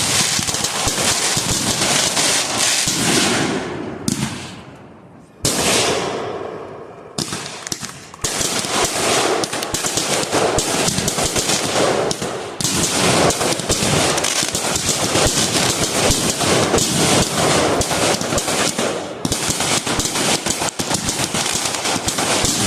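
Consumer fireworks going off in a loud, dense crackle of rapid bangs like a string of firecrackers. The crackle dies down briefly about four seconds in, then starts again and keeps going.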